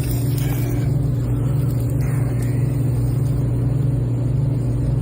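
A steady low mechanical hum with an even drone throughout, of the kind a running engine makes.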